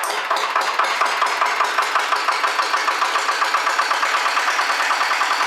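An old engine, just caught, running with a rapid, even firing beat.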